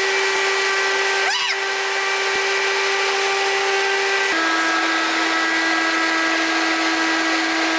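High-powered blower fan running steadily, a whining hum over rushing air; the hum steps a little lower in pitch just past halfway.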